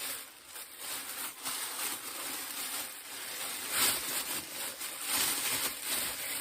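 Plastic bag rustling and crinkling as a latex mask is handled and pulled out of it, with louder rustles about four and five seconds in.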